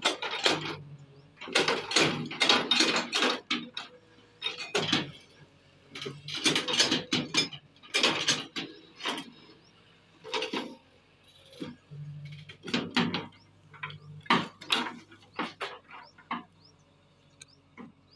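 JCB tracked excavator digging stony mud: the steel bucket scrapes and clatters against gravel and soil in irregular bursts, over the steady low hum of its diesel engine.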